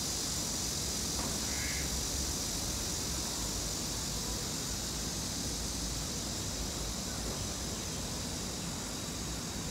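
Forest ambience: a steady high hiss with a low rumble underneath, and one short bird call about two seconds in.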